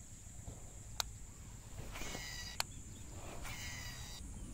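An animal calling twice, short pitched calls about a second and a half apart, over a steady high insect drone. Two sharp clicks are also heard.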